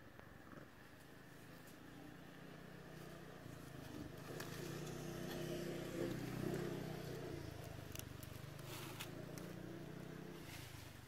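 Faint hum of a distant motor engine that grows louder over a few seconds, peaks midway and fades again, as a vehicle passing by would. A few faint clicks come near the end.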